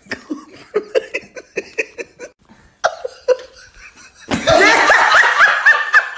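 Human laughter: a quick run of short, repeated laughs, then a louder, higher-pitched laugh starting a little past four seconds in.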